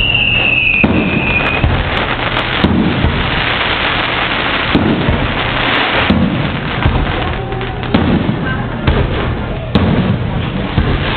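Aerial fireworks shells bursting overhead: a series of booms a second or two apart, with hissing and crackling between them. A falling whistle fades out about a second and a half in.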